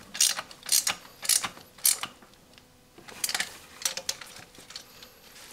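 Steel Nord-Lock washers clinking as they are slid onto exhaust manifold studs: about eight sharp metallic clicks roughly half a second apart, with a pause about halfway through.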